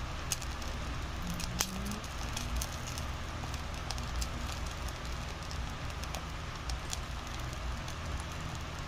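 Cooking oil crackling and popping as it heats in a small electric pot: an even sizzle with scattered sharp pops, over a steady low hum.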